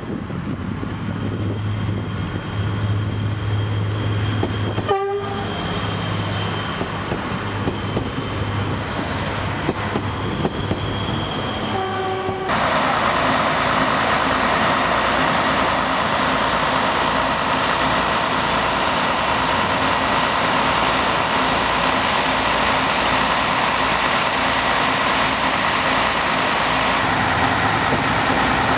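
CP class 592 diesel multiple unit running into the station with its engines humming, sounding two short horn blasts about five and twelve seconds in. Then a Renfe diesel railcar idling steadily at the platform, its engine noise topped by a thin high-pitched whine.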